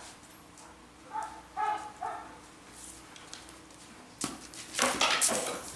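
A dog gives three short, high-pitched yips, then about four seconds in there is a sharp knock followed by loud noisy bursts as it noses into a plastic bucket.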